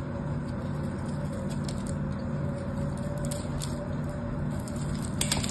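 Knife blade cutting and scraping into a dry bar of soap: a scatter of small crisp ticks and scrapes, with a quick loud cluster near the end, over a steady low hum.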